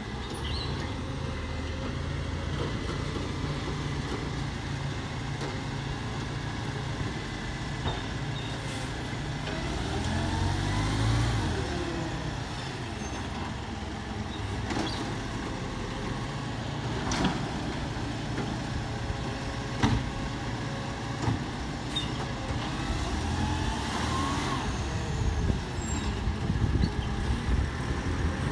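Dennis Eagle garbage truck's engine running steadily, revving up and back down twice as it works. Sharp knocks ring out several times in the second half.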